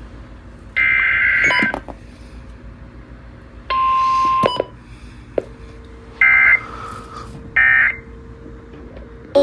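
Emergency Alert System digital data tones: four short bursts of shrill, buzzing chirps with pauses between them. The first burst comes about a second in and the second, about four seconds in, has a steady pure tone under it. The last two near the end are shorter.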